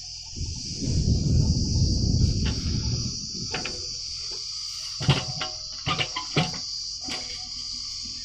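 Steady high-pitched chirring of crickets, with a loud low rumble for the first few seconds and a quick run of sharp knocks about two-thirds of the way through.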